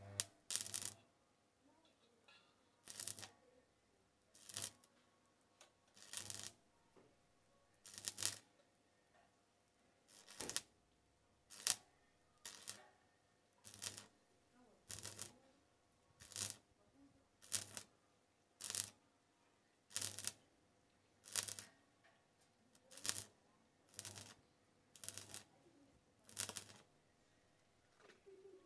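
Stick welder's arc crackling in short bursts, about one every one and a half seconds, as a series of short tack or stitch welds is laid on scrap steel.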